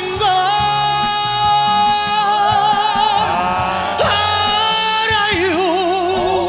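A man singing a trot ballad with band accompaniment, holding one long note that breaks into a wide vibrato about five seconds in.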